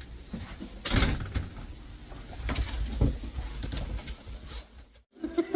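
Skateboard wheels rolling with a low rumble, and the board clattering and knocking, with sharp knocks about one second and three seconds in.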